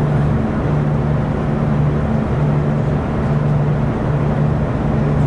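Interior noise of a V/Locity diesel railcar under way: a steady low engine hum that wavers slightly, over the rumble of wheels on track.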